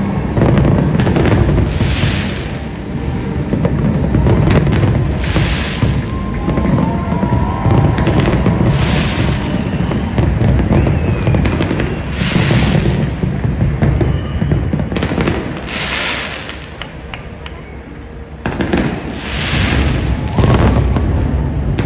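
Fireworks display: shells bursting in a continuous barrage, with a loud crackling shower every second or two over a steady low rumble. The barrage eases briefly near the end, then a fresh volley starts sharply.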